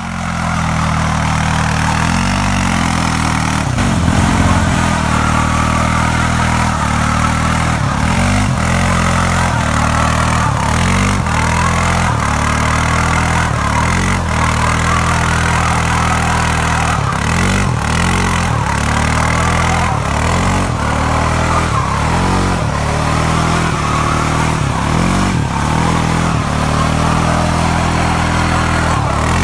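ATV engine held at high revs during a burnout, its rear wheels shod with car tyres spinning in place on pavement. A steady engine note dips and recovers now and then, over a constant hiss of tyre scrub.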